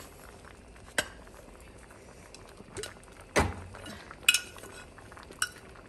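Kitchen utensils clinking against a ceramic jar and the pan as salt is added to the simmering dal: four separate sharp clinks, the two loudest near the middle, one ringing briefly.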